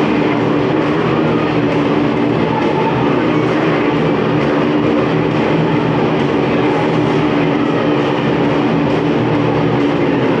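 Several motorcycles ridden around inside a steel-mesh globe of death, their engines running loud at steady high revs and blending into one continuous sound.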